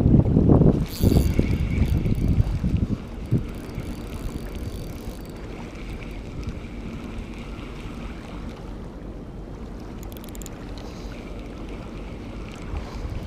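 Wind rumbling on the microphone, loud for the first three seconds or so and then easing to a steady hiss of wind and water lapping at the shore. Under it comes the faint whir of a spinning reel being cranked as a casting jig is retrieved.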